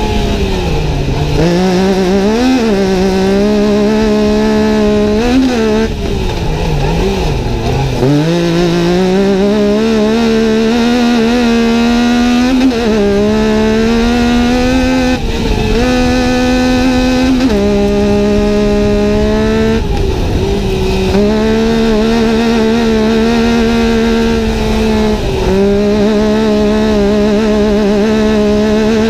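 Yamaha YXZ1000R race UTV's three-cylinder engine under hard acceleration, heard from inside the cab. The revs climb on the straights and drop sharply many times, at gear shifts and when lifting for corners, over a steady rumble of tyres on dirt.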